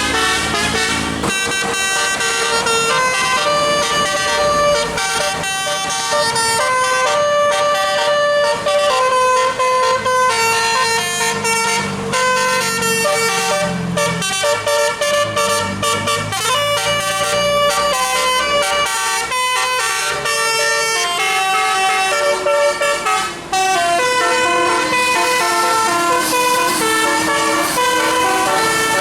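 Bus telolet horn, a multi-tone musical air horn, playing a long melody of quick changing notes, with several tones sounding together.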